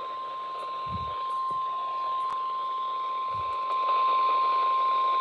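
EAS alert attention tone: a single steady tone of the kind NOAA Weather Radio sends before a warning, heard over radio hiss. It gets louder about four seconds in.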